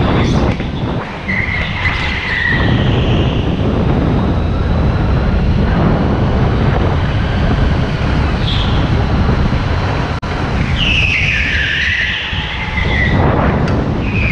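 Indoor rental go-kart driven at racing pace, heard from the driver's seat: a steady low drone from the running kart, with tyres squealing through corners, briefly about two seconds in, again for about two seconds around eleven seconds in, and once more near the end.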